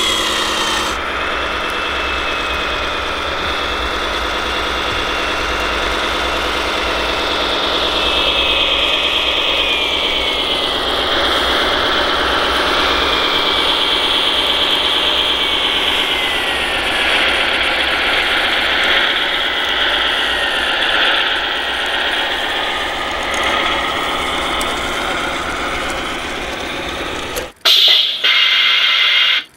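ScaleART MAN TGS 8x8 RC truck driving, its sound module playing a steady truck engine sound with a whine that falls and later rises in pitch as the truck changes speed. About two seconds before the end the sound cuts off abruptly and a louder engine sound takes over.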